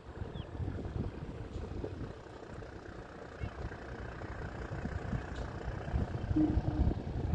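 Wind buffeting the microphone in an uneven low rumble, with a brief low hum about six seconds in.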